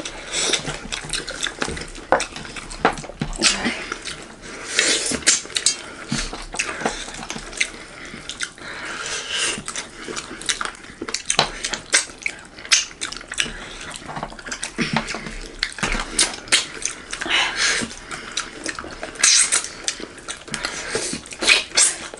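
Close-miked eating sounds: wet chewing, lip smacking and finger sucking as goat curry and rice are eaten by hand, with many short sharp clicks and light taps on steel plates.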